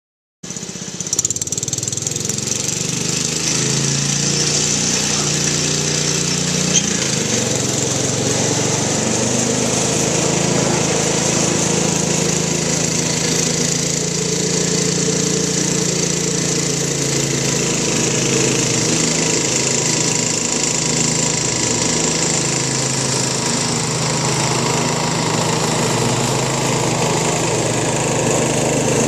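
John Deere 112 garden tractor's single-cylinder Kohler engine running steadily while mowing grass, starting about half a second in. It makes a continuous drone whose pitch wavers slightly.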